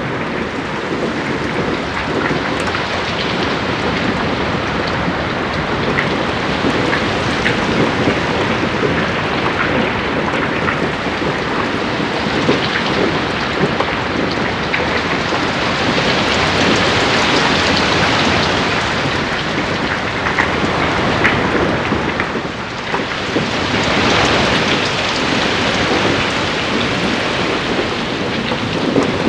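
Heavy rain falling steadily, a dense patter of drops that swells louder a couple of times.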